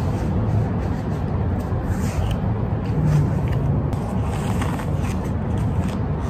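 Steady low background rumble, with light rustling and scraping as the hat and cloth face mask are handled.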